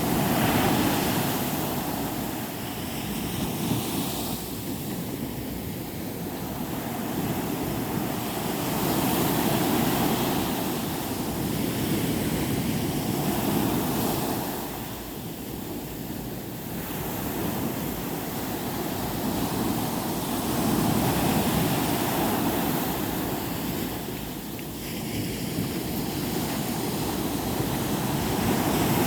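Sea waves breaking on a beach, the surf swelling and falling back in slow surges every several seconds.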